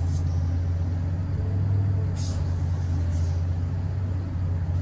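Komatsu PC3000 mining excavator heard from inside its cab while digging: a steady, low engine drone, with a couple of brief hisses about two and three seconds in.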